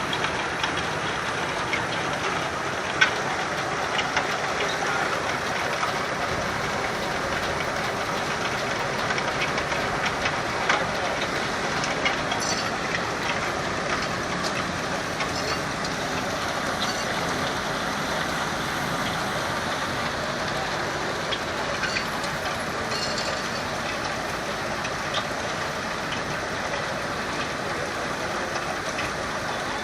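Steam-powered sawmill running steadily, a continuous mechanical noise with scattered clicks and knocks.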